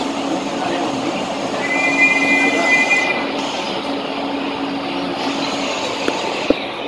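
Passenger train coach rolling slowly through a station, heard from inside at the window: steady rumble with a low hum, and a brief high-pitched squeal about two seconds in that lasts about a second. A single sharp click near the end.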